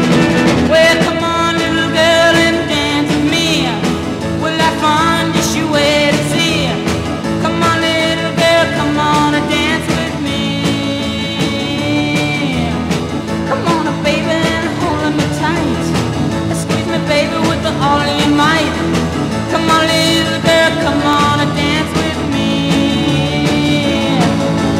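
Background music: a song with a sung vocal line over instrumental backing.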